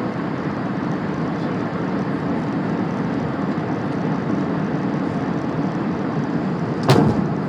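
Steady noise of an Airbus A380 airliner during its landing. Near the end comes a single sudden loud bang, which goes with a very hard touchdown.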